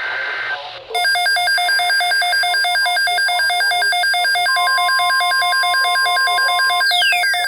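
Electronic emergency alert tones: a short buzz, then a loud, fast-warbling alarm tone, with a steady single tone over it for about two seconds and falling whistles near the end.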